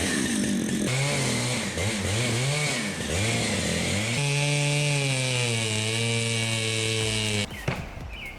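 Chainsaw engine revving up and down over and over, then running at a steadier pitch for a few seconds. It cuts off abruptly about seven and a half seconds in, leaving a quieter background with a few short high chirps.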